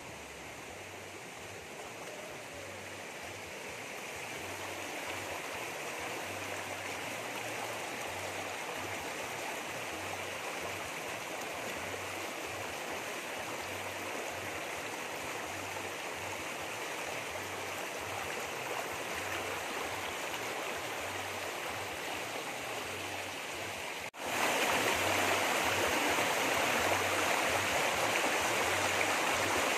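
Shallow rocky stream rushing over stones, a steady rush of water that grows louder over the first several seconds. About 24 seconds in it cuts abruptly to a louder, closer rush of the water over the rocks.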